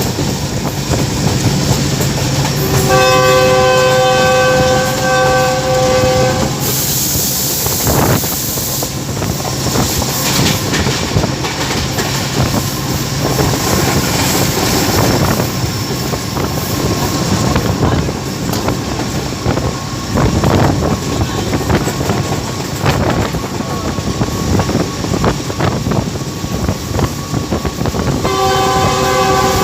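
Pakistan Railways GEU-20 diesel-electric locomotive running at speed, its wheels clicking over the rail joints. Its multi-tone horn sounds for about three seconds near the start and again just before the end, and a brief rush of hiss comes around seven seconds in.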